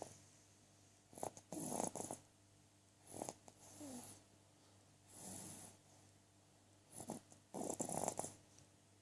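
Snoring in sleep: four snores, each about a second long, coming roughly every two seconds.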